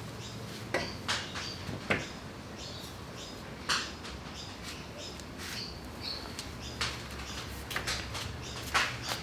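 Scattered metallic clinks and knocks from metal tools and parts being handled and set down, some with a short ring. A faint low hum comes and goes underneath.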